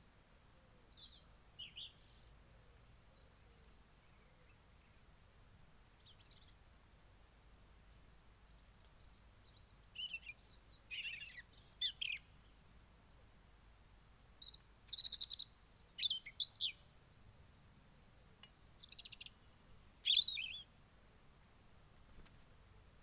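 European robin singing: about five short phrases of high, quickly changing chirps and twitters, separated by pauses of a few seconds.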